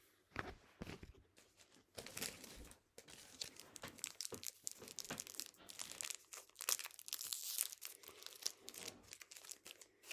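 Plastic trading-card pack wrapper being crinkled and torn open by hand, a dense crackling that starts sparse and becomes near-continuous about two seconds in.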